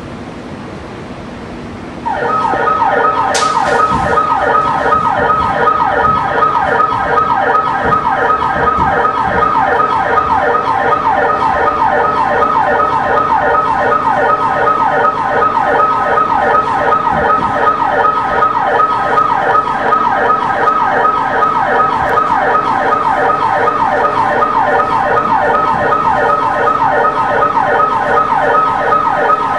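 A loud siren-like warbling sound cuts in about two seconds in and runs on steadily: a fast, evenly repeating sweep in pitch over a steady high tone. A low hum is heard before it starts.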